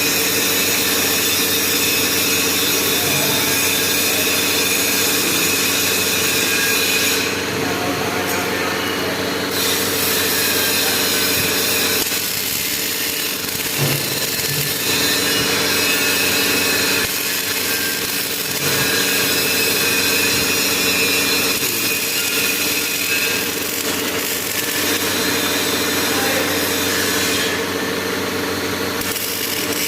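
Hydraulic press power unit running steadily while the ram is raised: a constant mechanical hum made of several steady tones.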